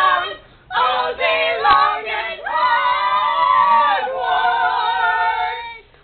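A small group singing a cappella in mixed voices: short sung notes, then about two and a half seconds in a chord held for some three seconds that stops just before the end.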